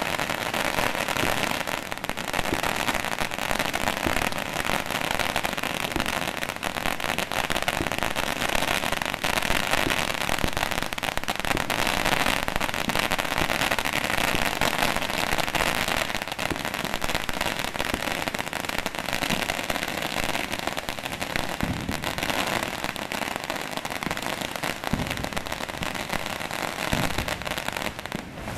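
Firecrackers going off in a dense, continuous crackle of rapid bangs with no let-up. The recording is harsh and low in fidelity.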